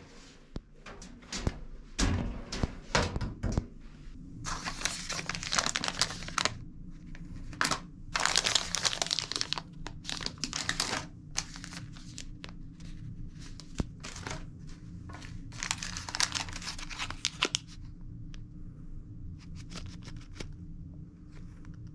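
Paper and plastic toiletry wrappers rustling and crinkling as they are handled, in several bursts, with a few low thumps about two seconds in. A steady low hum runs underneath.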